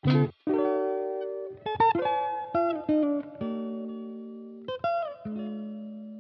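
Background music: single struck notes and chords that ring out and slowly fade, a new one about every second, several sliding up in pitch as they start.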